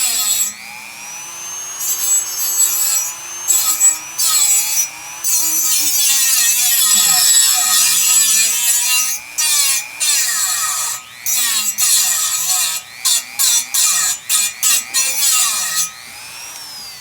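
Small rotary tool with an abrasive cut-off wheel grinding into a bar in repeated passes, stopping and starting often, with quick short passes near the end. Its motor whine sags and recovers as the wheel bites. The cut is going slowly, taking forever to get through.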